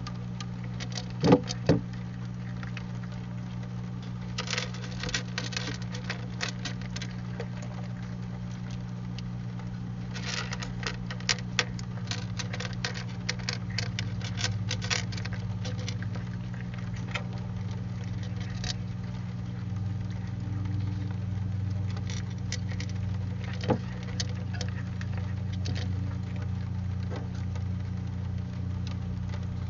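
A cat crunching dry kibble in quick clusters of crisp clicks, over the steady low hum of a trail camera's recording. Two louder knocks come about a second in, and another single knock near the end.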